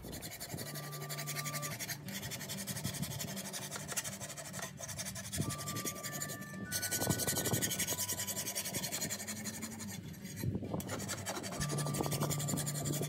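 Hand file rasping along the steel blade of a push lawn mower tipped on its side, sharpening the cutting edge. Repeated scraping strokes with a few short breaks.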